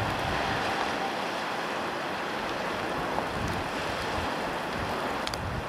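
Steady rush of sea surf breaking on the shore, with a little wind.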